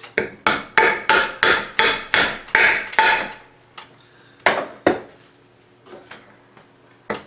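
A wooden pulley being knocked onto its shaft: a quick run of about nine sharp knocks, roughly three a second, then two more a little later and a single knock near the end.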